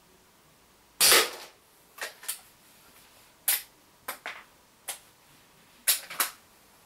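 A single shot from an Umarex Legends Cowboy CO2 lever-action rifle about a second in, a sharp crack with a short tail. It is followed by about eight shorter sharp clicks and clacks, in pairs and singles.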